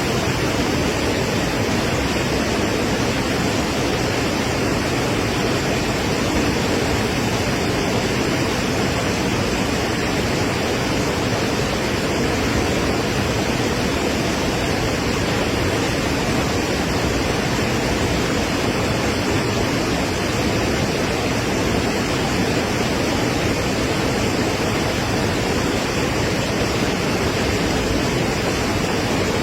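Floodwater rushing: a steady, unbroken wash of noise with no separate events.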